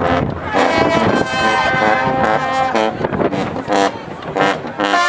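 College marching band playing: the brass section holds loud sustained chords with sousaphones underneath, punctuated by drum hits. The phrases break off briefly a few times.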